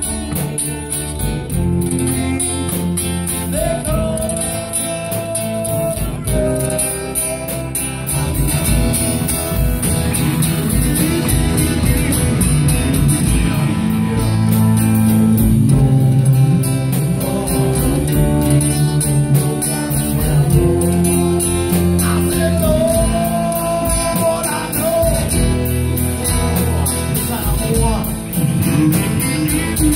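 A live band playing electric guitars and drums, with a steady beat and a few long held notes.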